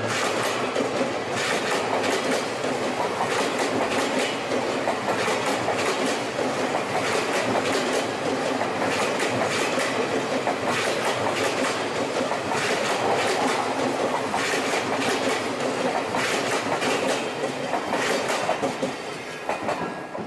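Japanese commuter electric train passing close by over a level crossing, its wheels clattering over the rail joints in a clickety-clack. The noise falls away near the end as the last car clears.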